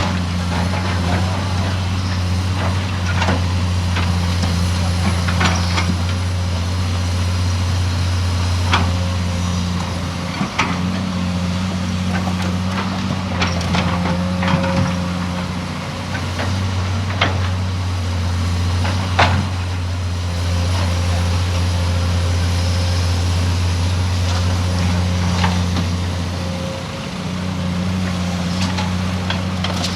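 Heavy diesel engines of excavators and dump trucks running steadily with a low drone, with scattered sharp knocks and clanks.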